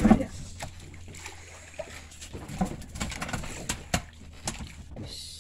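Water lapping and sloshing against the hull of a small wooden outrigger fishing boat, with scattered light knocks and taps on the deck as a landed fish is handled with a gaff pole.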